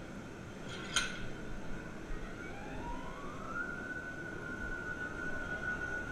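Steady roar of a blacksmith's forge, with one sharp clank about a second in. A whining tone rises in pitch from about two and a half seconds in, then levels off and holds steady.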